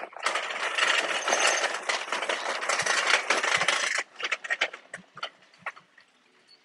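Metal shopping cart rolling over a tiled floor, its wheels and wire basket rattling steadily for about four seconds and then cutting off suddenly, followed by a few scattered clanks and knocks.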